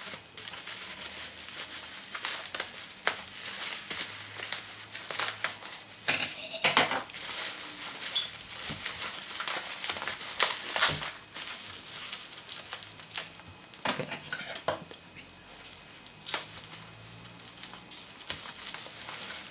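Shipping box and plastic packaging being opened and handled: crinkling and rustling with many short clicks and knocks.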